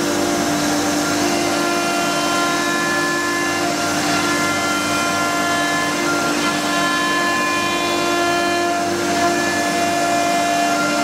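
CNC nesting router's spindle and motion drives running while the bit carves a recessed decorative pattern into MDF board. A steady whine with several held tones rides over the noise of the cut, and some tones shift slightly as the cutter changes direction.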